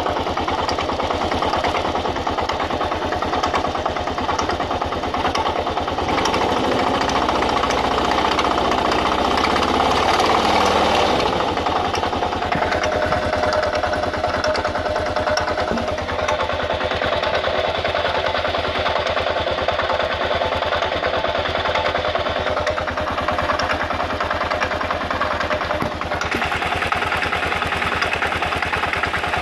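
2000 Kawasaki KLR650 single-cylinder engine running at idle with a rapid clacking, grinding clatter, a noise whose cause the owner does not know. The sound swells a little around ten seconds in.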